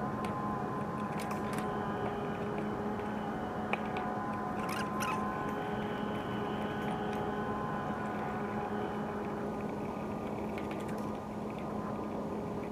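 Several light clicks and taps from handling small model locomotive parts, over a steady low electrical hum.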